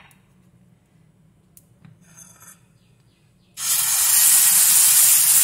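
Dosa batter hitting a hot dosa griddle (tawa): a loud, steady sizzling hiss starts suddenly about three and a half seconds in, after a quiet stretch with a few faint clinks.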